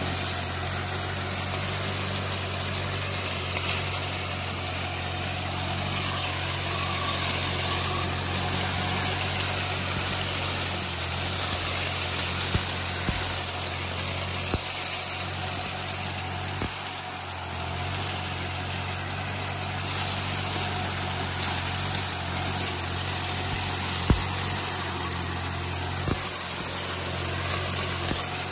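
Kubota B2420 compact tractor's diesel engine running steadily while its rotary cane-leaf shredder chops through sugarcane trash. Over the engine there is a constant hiss, with a few sharp ticks.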